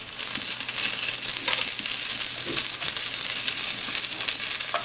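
Small onions and chilies sizzling as they fry in bacon fat in a glazed clay cazuela, with a few scrapes and knocks of a wooden spoon against the pan.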